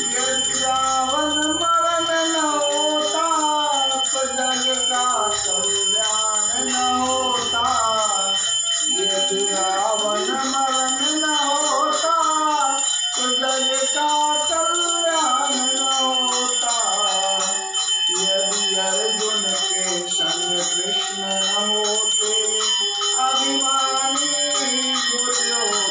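A man singing a devotional bhajan to a harmonium, with small hand cymbals (manjira) ringing in a steady beat throughout.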